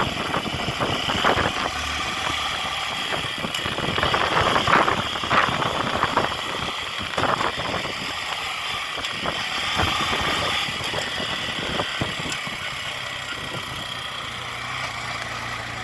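A motor vehicle's engine running, with rattles and knocks over a steady noise.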